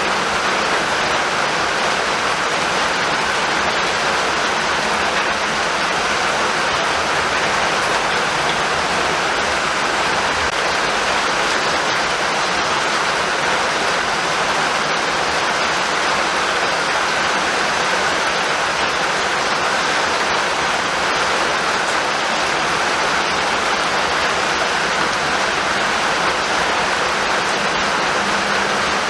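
Steady rain falling, an even, unbroken hiss with no thunder or other sudden sounds.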